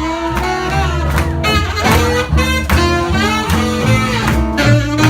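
Live swing-jazz band playing a steady-beat tune: strummed rhythm guitar and plucked bass under a melody line.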